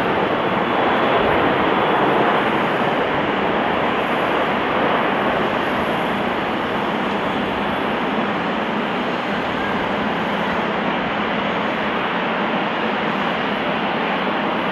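Steady jet noise from the Airbus A340-300's four CFM56 engines as the airliner flies in low and touches down on a wet runway, a little louder in the first few seconds and then level.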